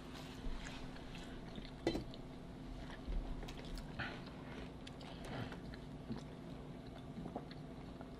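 Quiet chewing and wet mouth smacks of people eating sausage hot dogs, with scattered small irregular clicks.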